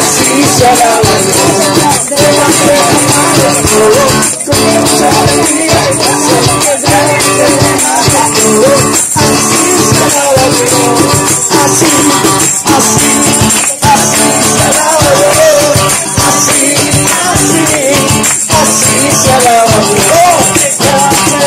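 Live worship music: instruments playing with voices singing a melody.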